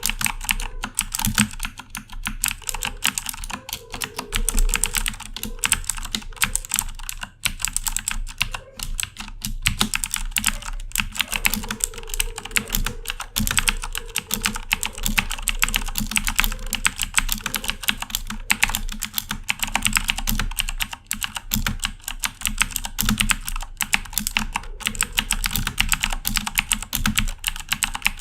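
Corsair K70 mechanical keyboard with clicky Cherry MX Blue switches being typed on fast and continuously: a dense stream of sharp keystroke clicks, broken only by a few very short pauses.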